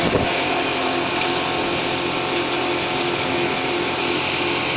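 Wood crusher running at speed: a steady, dense whirring noise with a constant hum underneath, and a single knock just after the start.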